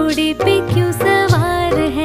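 Background song: a singing voice with melodic swoops over instruments and a low bass beat.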